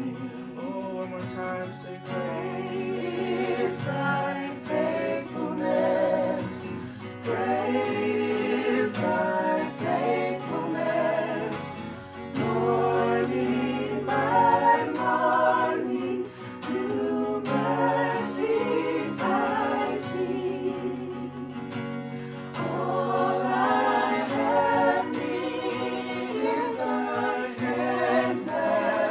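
A church worship team singing a worship song, several voices together with guitar accompaniment.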